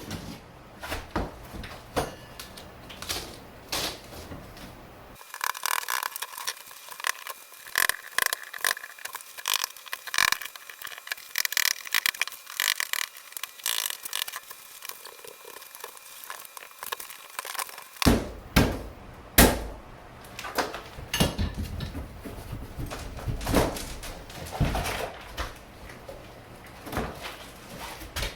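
A hammer working at cement backer board and its roofing nails, with irregular knocks, clicks and scraping of board pieces. From about five seconds in to about eighteen seconds the sound turns thin, with no low end, before the fuller knocks return.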